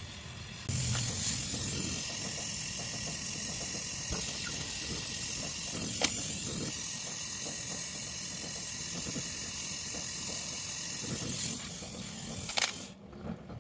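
Steady hiss of pressurised gas that starts abruptly about a second in and holds evenly for about eleven seconds before stopping, followed by a few sharp clicks near the end.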